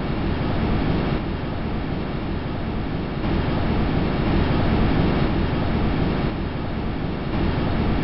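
Audio from the microphone on the Huygens probe descending through Titan's atmosphere: a steady rushing noise with a deep rumble, swelling a little in the middle.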